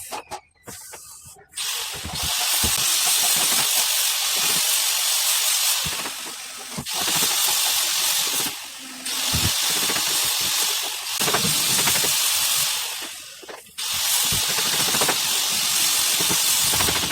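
Compressed air hissing in long bursts of a few seconds each, cut off briefly between bursts, as when a workshop air tool such as a spray gun is triggered on and off.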